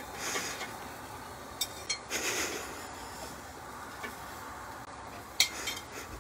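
Metal grill tongs clinking against the grill grate and a plate as grilled vegetable slices are lifted off, a few sharp clinks with the loudest about five seconds in.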